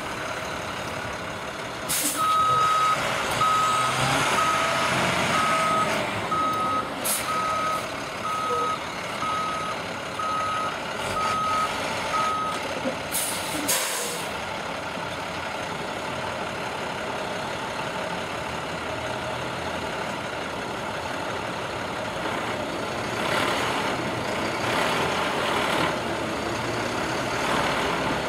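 Hi-rail work truck reversing, its backup alarm beeping steadily at about one beep a second for some ten seconds, with a few short hisses of air and the engine running.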